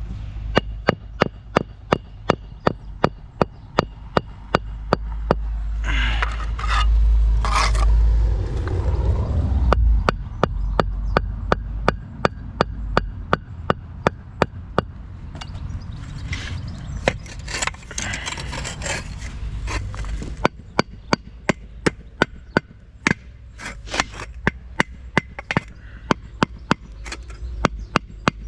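Sharp knocks repeating evenly, about three a second, over a low rumble and some scraping that swells for a few seconds near the start.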